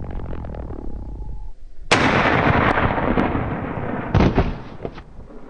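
Background music fading out, then a hunting rifle shot about two seconds in with a long rolling echo, and a second sharp rifle shot about four seconds in.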